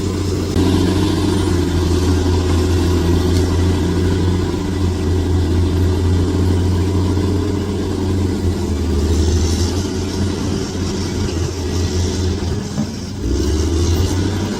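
Bulldozer's diesel engine running steadily under load, a low drone that shifts in pitch about two-thirds of the way through and drops out briefly near the end before picking up again.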